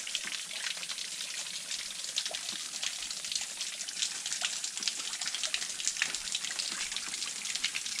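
Springwater dripping: many drops falling at once in a dense, irregular ticking over a steady watery hiss.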